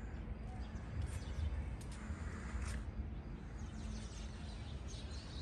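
Quiet outdoor ambience: a steady low hum with a few faint bird chirps.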